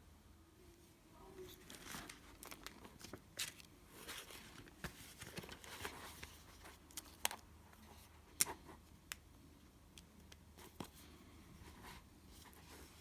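Paper rustling and handling as book pages are turned, with a run of sharp clicks and taps that comes to an end about three-quarters of the way through.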